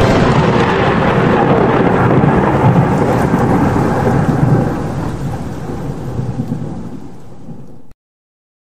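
A rumbling, thunder-like noise effect that starts abruptly, fades over its last few seconds, and cuts off suddenly at about eight seconds, leaving complete silence.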